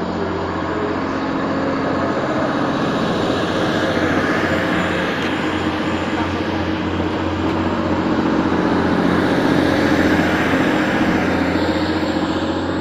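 Class 185 diesel multiple unit pulling away from the platform, its Cummins diesel engines running under power. The sound builds to its loudest about ten seconds in, then eases slightly near the end.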